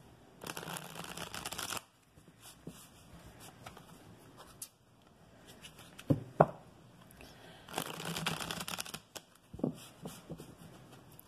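A deck of tarot cards being shuffled by hand: two bursts of rapid card clicking, about a second and a half each, one near the start and one about eight seconds in, with a few sharp taps in between and after.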